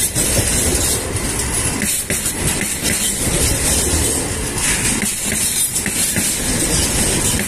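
Freight train wagons loaded with tank containers rolling past close by: a steady, loud rumble and clatter of steel wheels on the rails.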